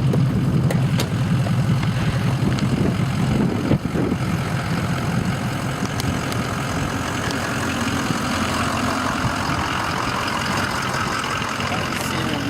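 City bus engine idling, heard from inside the bus: a steady low hum that eases a few seconds in, with a steady hiss underneath.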